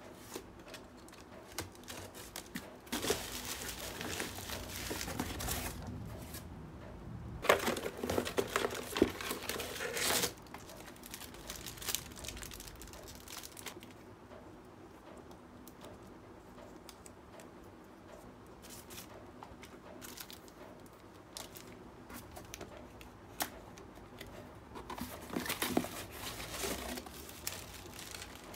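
Parcel packaging being handled: packing tape cut and torn from a cardboard box, then plastic wrapping and bubble wrap crinkling and rustling in bursts. The loudest burst comes about seven to ten seconds in, with quieter rustling after it and another burst near the end.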